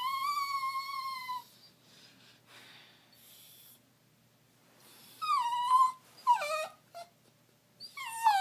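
Rat terrier making strange drawn-out whining cries: one long high-pitched whine, then faint breathy sounds, then a few short cries that slide down in pitch, and another long whine starting near the end.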